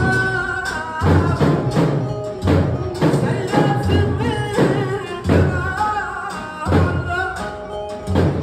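A man singing a Turkish song through a microphone and PA, over an electronic keyboard and a heavy drum beat that hits about every second and a half.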